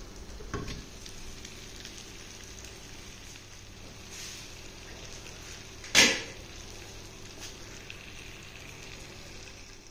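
Low, steady sizzling of mutton on a hot tawa, with a lit charcoal ember set in the middle for smoking. One sharp, loud burst comes about six seconds in.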